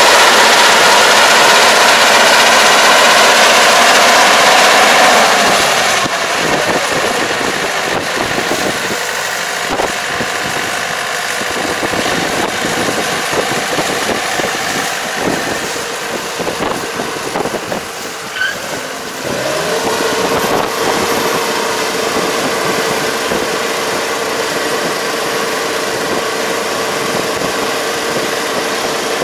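Kubota ER587 rice combine harvester running: loud and steady close by for the first five seconds or so, then quieter and more uneven as it pulls away to cut rice, with a steady hum settling in about two-thirds of the way through.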